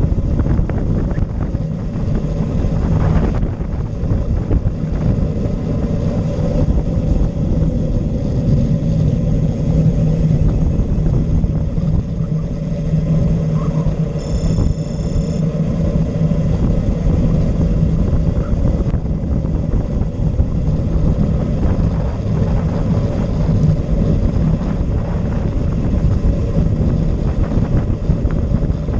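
Steady rush of wind on the microphone and tyre noise from a road bike descending fast on asphalt, with a constant low hum running under it.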